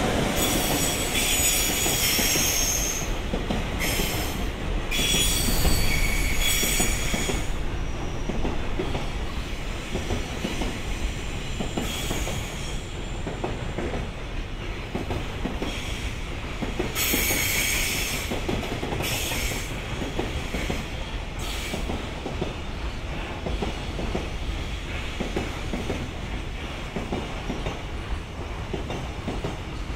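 Freight train rolling through slowly, a steady low rumble of wagons on the rails with spells of high-pitched wheel squeal, the longest in the first seven seconds and another about two-thirds of the way through.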